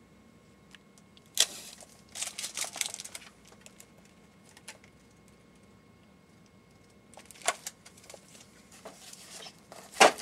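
Hardcover library books handled on a metal shelf: a knock as a book is pulled out, a quick rustle of pages being leafed through, then more shelf clicks and a sharp knock near the end, the loudest sound, as a book is handled on the shelf.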